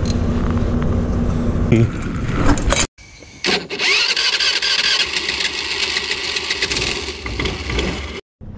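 A steady engine hum runs for about three seconds. After a brief cut, a loud, noisy sound-effect sting with a rising sweep near its start plays for about five seconds and stops abruptly.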